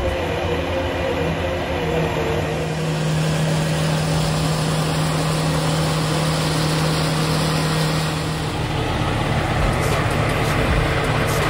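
Diesel engine of a milk tanker semi-truck running steadily, with a low hum over an even mechanical noise.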